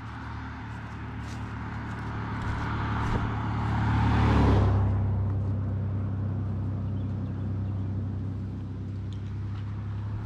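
A motor vehicle passes by, growing louder to a peak about four and a half seconds in, its pitch falling as it goes, then fading. A steady low engine hum runs underneath.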